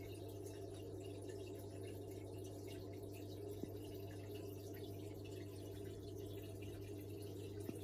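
Aquarium filter and aeration running: a steady low hum under trickling water and a faint crackle of bubbles at the surface.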